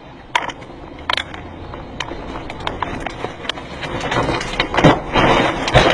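Tornado wind and flying debris hitting a car: a few sharp knocks about a second apart at first, then a rising roar of wind with many hits in quick succession, loudest near the end.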